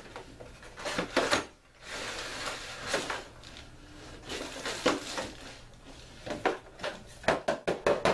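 A product box and its packaging being handled and opened: cardboard and plastic rustling and scraping, then a quick run of sharp clicks and taps near the end.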